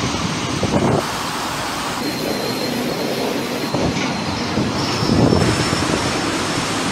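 Storm-force wind gusting with driving rain, a dense rushing noise that swells loudest about five seconds in, with a faint thin high whistle at times.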